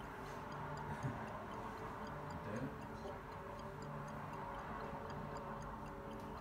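Soft meditative background music of sustained singing bowl drones, several steady tones held together, with a faint, regular high ticking running through it.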